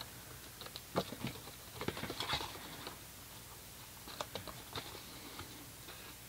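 Scissors cutting through cardstock: a scattering of short snips with light paper rustle between them.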